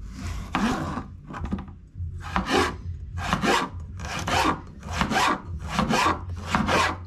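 A large kitchen knife slicing a tomato on a plastic cutting board: a series of rasping strokes, about one a second, as the blade draws through the tomato and scrapes the board.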